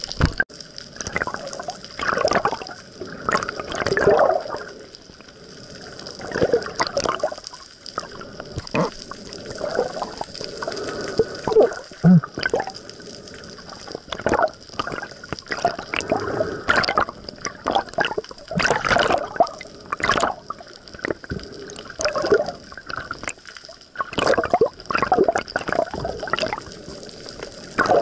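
Water sloshing and bubbling around an underwater camera while snorkeling, in irregular swishes and splashes every second or two, with a steady faint high whine underneath.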